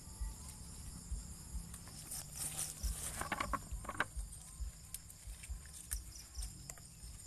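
Steady insect chorus, with crackling rustles and snaps of melinjo leaves and twigs being plucked and handled, strongest about three to four seconds in, over dull low bumps.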